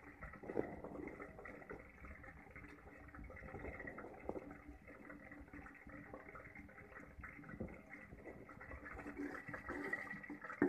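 Chopped onions sizzling faintly in hot oil in a large steel pot, stirred with a steel ladle, with a few light knocks of the ladle against the pot.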